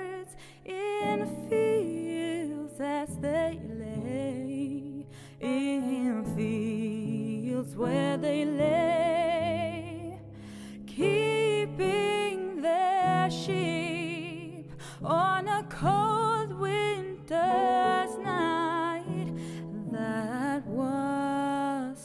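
Slow Christmas background song: a singer holds long notes with vibrato over sustained chords.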